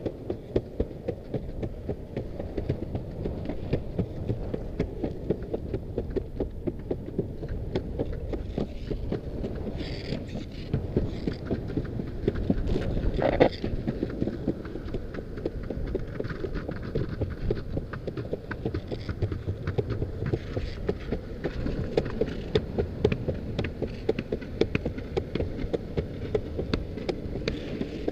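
Longboard wheels rolling on a paved path: a steady low rumble broken by many small clicks and knocks, with one sharper knock about 13 seconds in.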